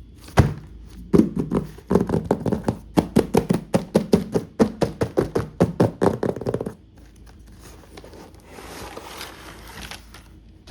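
Quick, loud run of taps and knocks, several a second, from hands handling a toy doctor set and its packaging. Partway through they stop, and a soft rustle follows.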